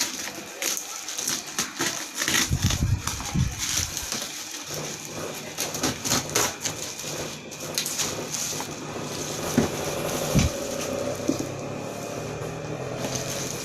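Packaging being handled during unboxing: crinkling and rustling with many sharp clicks and knocks, busiest in the first half, over a steady low hum from about five seconds in.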